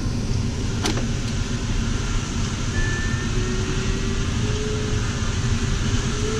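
Steady rush of airflow over a sailplane's canopy and through its open vent window, heard inside the cockpit in smooth gliding flight. A single sharp click comes about a second in, and a faint steady tone comes in about halfway and rises slightly in pitch.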